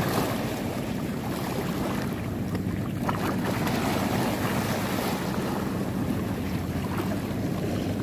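Wind buffeting the microphone over choppy sea water lapping, a steady rushing noise.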